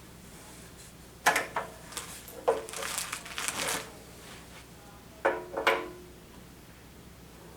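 Clicks, knocks and a metallic rattle from handling the TV stand's metal base and its caster wheels: a few sharp knocks about a second in, a short rattling stretch around three seconds, and two sharp clicks near the end.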